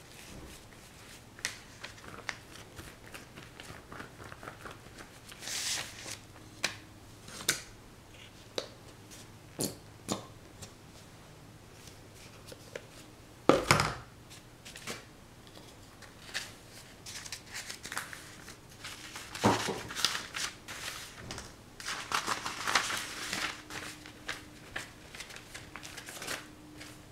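Scattered clicks, light scrapes and paper rustles from a wide flat brush working thick paint over paper laid on newspaper, with one sharp knock about halfway through.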